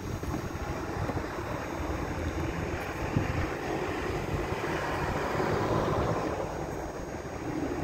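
Steady low rumble of vehicle engine noise, growing a little louder past the middle and easing near the end.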